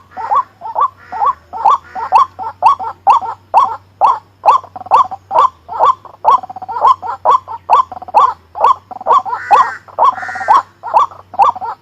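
White-breasted waterhen calling loudly, a monotonous series of sharp notes about three a second, with a second, richer call joining in briefly near the end.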